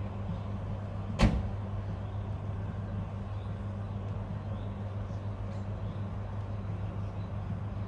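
A steady low hum of an idling vehicle engine, with one sharp bang about a second in.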